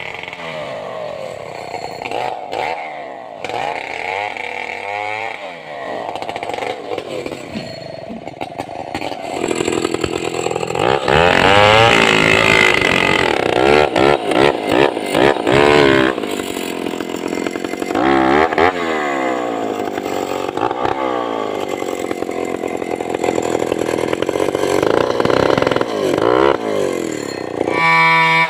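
Two-stroke Stihl chainsaw running and cutting into a large sengon log, its engine pitch rising and falling as it bogs in the cut and revs up again. It is loudest for a stretch about ten seconds in.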